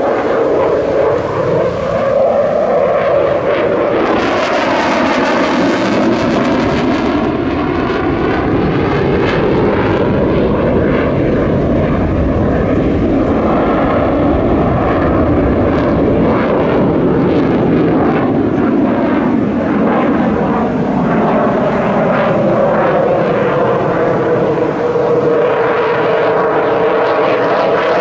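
Dassault Rafale C fighter's twin M88 jet engines running loud and continuous as the jet manoeuvres, the noise wavering up and down in pitch. A harsher hiss comes in about four seconds in for a few seconds.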